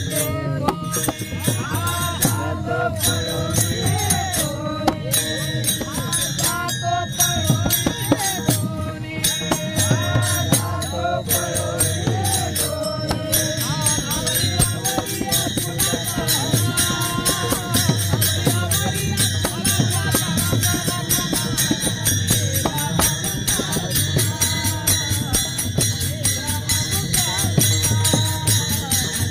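Group of men singing a Marathi gavlan, a devotional song, together, with many taal (small brass hand cymbals) clashed in a fast steady rhythm.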